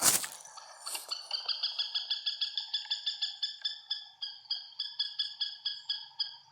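A sharp knock, then a bird calling a long, even series of high notes, about five a second.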